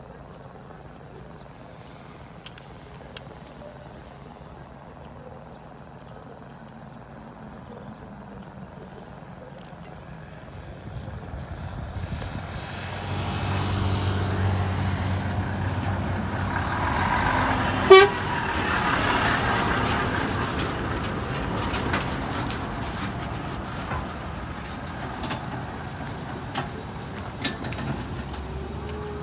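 Volvo FH 460 truck's six-cylinder diesel engine growing louder as the truck approaches and passes close by, then fading as it pulls away. A single short horn toot, the loudest moment, comes a little past the middle.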